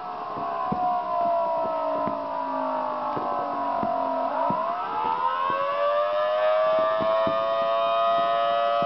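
Homemade horn loudspeaker (a speaker driver fitted in a plastic-bottle horn) sounding an air-raid-style wailing siren. The pitch slowly falls until about four and a half seconds in, then rises again and holds high. Scattered sharp cracks sound behind it.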